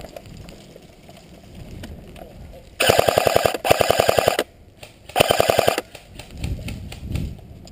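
Airsoft electric rifle firing on full auto at close range: three bursts of rapid, evenly spaced shots, two back to back about three seconds in and a shorter one about two seconds later.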